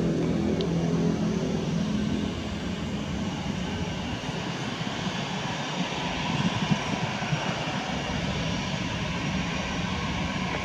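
Airbus A320-214's two CFM56-5B jet engines running at low taxi thrust, a steady jet noise, as the airliner turns on the runway to line up for departure.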